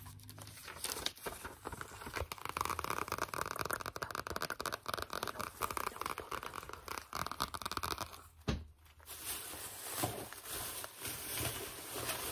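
A spiral-bound notebook handled close to the microphone: a dense run of papery scratching and crackling as its pages and cover are worked with fingers and nails. It breaks off briefly about eight and a half seconds in, then gives way to a softer, hissier rustling.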